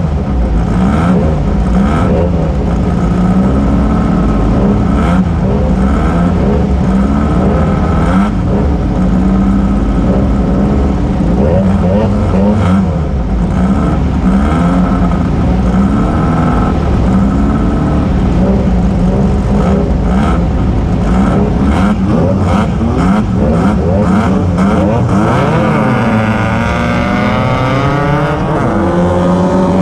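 Off-road race vehicle's engine running hard, its pitch rising and falling repeatedly with throttle and gear changes, with scattered knocks and rattles. Near the end it climbs steadily in pitch through a long acceleration.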